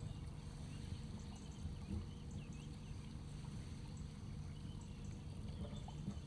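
Low, steady hum of a boat's engine motoring slowly through calm water, with a few faint bird chirps above it.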